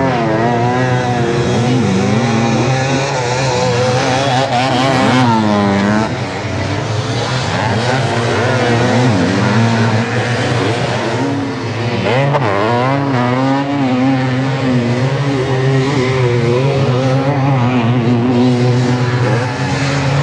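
Two-stroke motocross bikes racing, a Kawasaki KX85 among them. Several engines rev up and down together, with sharp rising revs about five seconds in and again about twelve seconds in.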